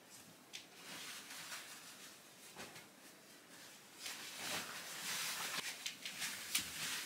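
Faint rustling and scattered light knocks from someone moving about unseen, growing busier from about four seconds in.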